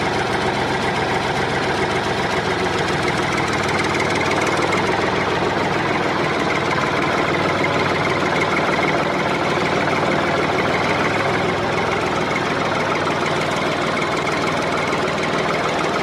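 A motor running steadily, one continuous even drone with no pauses or changes in speed.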